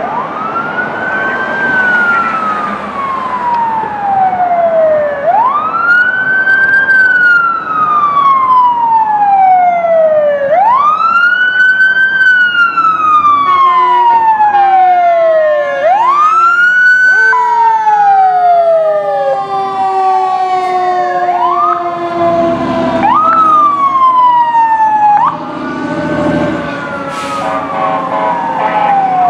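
Fire engine and rescue ambulance sirens. One siren wails in cycles of about five seconds, each climbing quickly and then falling slowly. From about halfway through, more sirens wailing and yelping overlap it as the rigs pass.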